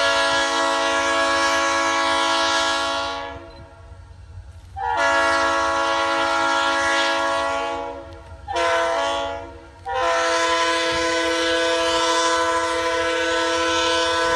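Diesel locomotive air horn sounding a chord in long, long, short, long blasts, the standard grade-crossing signal, as the train approaches.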